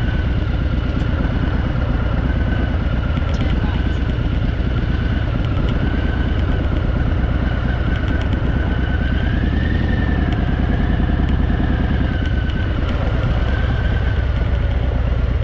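Harley-Davidson Fat Boy's V-twin engine running steadily as the motorcycle rides along.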